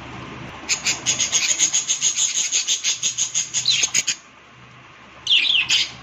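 Budgerigars chirping: a fast run of short, high chirps, about eight a second for some three seconds, then after a short pause a few quick falling chirps.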